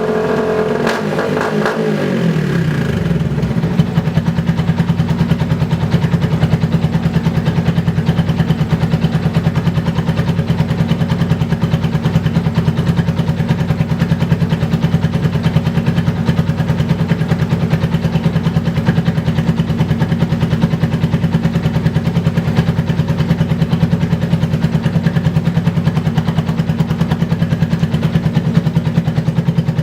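Yamaha Vixion's single-cylinder four-stroke engine heard through an aftermarket R9 exhaust mounted under the belly. A rev falls away over the first two to three seconds, then the engine settles into a steady idle with an even, rapid exhaust beat.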